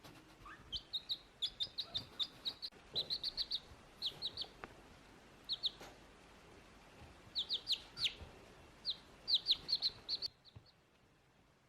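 Baby chick peeping: runs of short, high peeps falling in pitch, several a second, in bursts, cutting off abruptly near the end.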